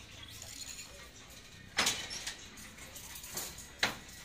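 Wooden silk handloom being worked: two sharp clacks about two seconds apart, with a fainter knock between them.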